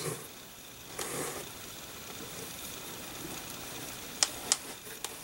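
Faint hand-handling noise as fabric and trim are pressed into place by fingers: a brief rustle about a second in and two light clicks a little after four seconds, over a steady low hiss.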